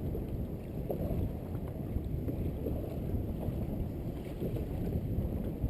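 Steady low rumble of wind on the microphone on a small boat at sea, with a few faint knocks.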